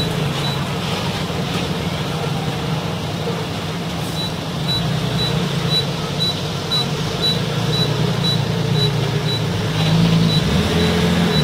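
Diesel engine of a loaded 5-ton dump truck running as the truck reverses, getting louder about ten seconds in. A short high beep repeats about three times a second over it.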